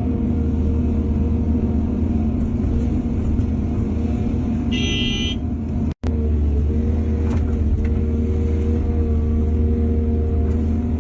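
Diesel engine of heavy earthmoving machinery running steadily. A brief high-pitched tone sounds just before five seconds in. The sound cuts out for an instant around six seconds in, and a few faint knocks follow.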